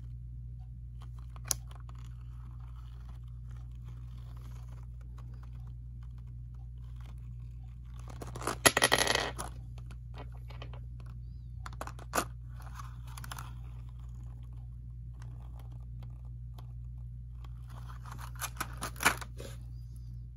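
Clear plastic blister packaging being handled: scattered clicks and crinkles, with two louder bursts of crackling about eight and eighteen seconds in, over a steady low hum.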